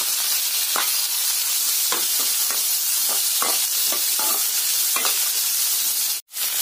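Sliced onions and whole spices sizzling in hot oil in an aluminium kadai, with a steady hiss and the irregular scrape and knock of a slotted spatula against the pan as they are stirred. The sound cuts out for a moment about six seconds in.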